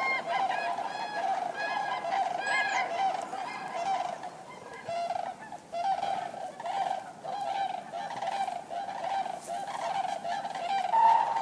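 A flock of common cranes calling, many trumpeting calls overlapping in a continuous chorus, with a louder, higher call near the end.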